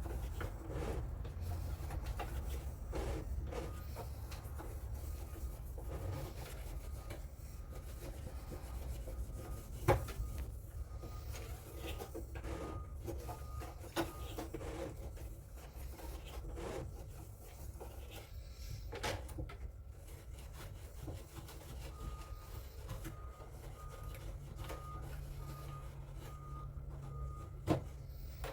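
Cloth wipe rubbing back and forth over the ink-caked roller and parts of a dot matrix printer, an uneven scraping with a few sharp clicks or knocks from the printer's plastic parts.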